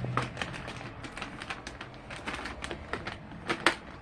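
Sticky jelly slime being handled, giving many small irregular clicks and crackles, with two sharper clicks about three and a half seconds in.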